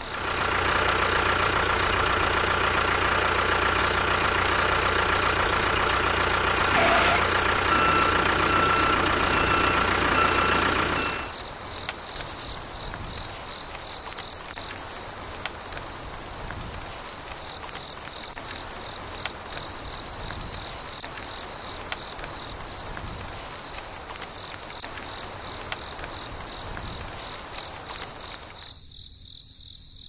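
A small motor runs steadily and then cuts off about eleven seconds in, leaving crickets chirping.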